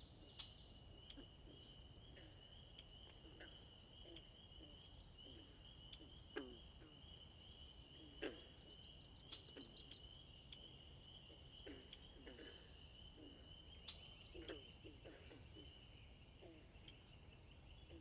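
Faint wetland ambience: a steady high insect drone, short high bird whistles repeating every few seconds, and soft low calls from a feeding flamingo flock scattered throughout. About eight seconds in comes a single downward whistle with a low call, the loudest moment.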